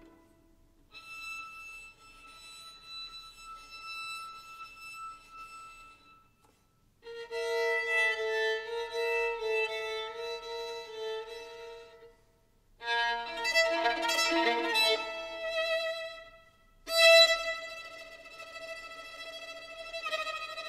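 Solo violin played with the bow, unaccompanied. It plays held notes in separate phrases with short pauses between them, soft at first and then louder, with a sharp accented attack about two-thirds of the way through.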